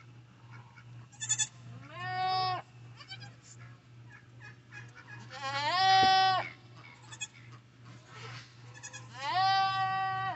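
Nigerian Dwarf goat bleating three times, each call rising at the start and then held steady for about half a second to a second; the middle one is the loudest. A faint steady low hum runs underneath.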